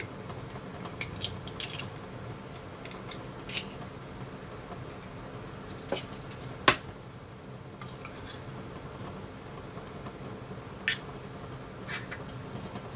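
Two eggs cracked one after the other into a bowl: sharp taps of shell against the bowl's rim and small cracking clicks, the loudest tap about halfway through, over a steady low hum.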